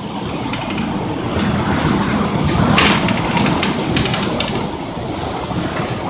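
Strong storm wind blowing hard over the microphone as a rushing noise, with a few sharp clatters around the middle.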